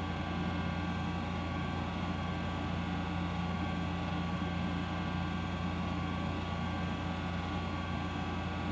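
A steady low droning hum with several constant tones, unchanging in pitch and level.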